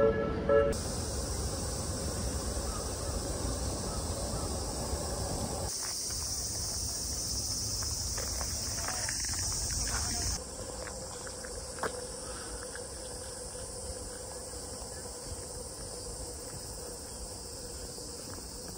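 Cicadas in the trees buzzing in a steady, high, unbroken chorus, louder for a few seconds in the middle.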